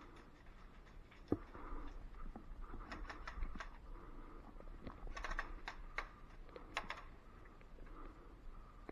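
Scattered sharp clicks and snaps of airsoft pistols firing during a game. One louder snap comes about a second in, and quick clusters of clicks come around the middle.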